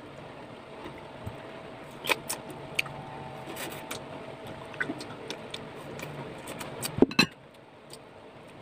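Eating sounds of unripe mango with a chili dip: mouth clicks and smacks scattered through the middle, over a steady background hum. Two loud knocks come about seven seconds in.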